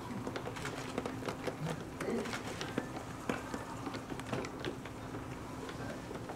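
Quiet room tone with scattered faint clicks and small rustles over a low steady hum.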